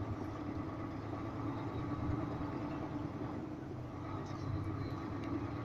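Lorry engine running under way, heard from inside the cab as a steady low drone.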